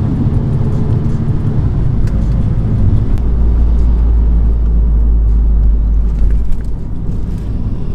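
Car driving, heard from inside the cabin: a steady low rumble of engine and road noise that deepens about three seconds in.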